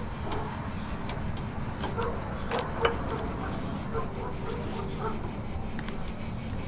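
Insects chirping in a steady, fast, even pulse, high-pitched. A few faint clicks and rubs come from hands pushing the fuel feed hose onto its plastic fitting.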